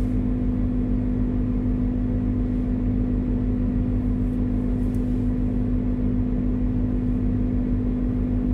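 Mitsubishi Pajero Mini VR-II's small turbocharged engine running at a steady, unchanging drone.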